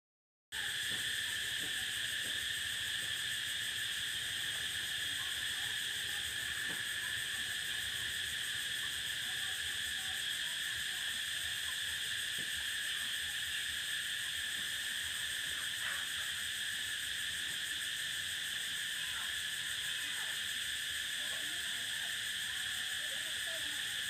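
Cicadas buzzing in a steady, unbroken high-pitched chorus, cutting in abruptly about half a second in.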